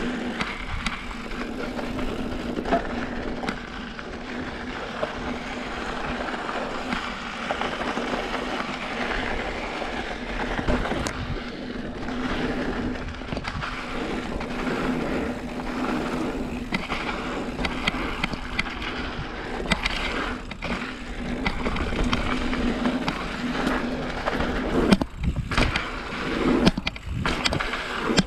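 A mountain bike riding fast down a rocky dirt trail: the tyres roll and crunch over loose rock while the bike rattles. Several harder knocks come near the end.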